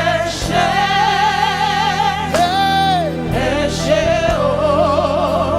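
Gospel worship music: a singer holding long notes with vibrato over a steady band backing.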